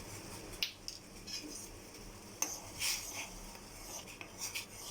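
A metal spoon clinking and scraping against a pot and a container while half a tablespoon of herbal powder is scooped into water. There are a couple of sharp taps and several short scrapes.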